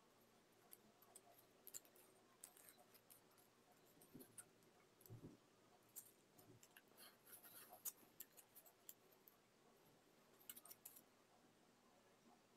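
Near silence, with faint scattered crinkles and clicks of origami paper being handled, thickest about six to eight seconds in and again around ten seconds.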